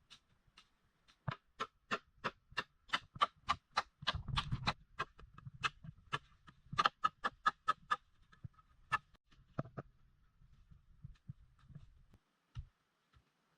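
Repeated sharp blows of a hand tool chopping into wood, about three to four strikes a second, thinning out after about eight seconds into a few scattered knocks and low thuds.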